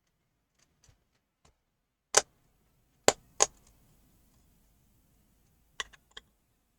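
Sharp clicks and snaps of tools prying at the metal case of a LaCie Mobile Drive external hard drive: a loud snap about two seconds in, two more close together about a second later, and a quick cluster of three near the end, with faint ticks between.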